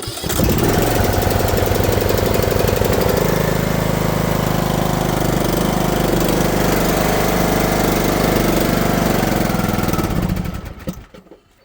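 Briggs & Stratton Platinum engine on an old Craftsman riding mower running loud and rough on year-old stale gasoline, then dying out about ten and a half seconds in.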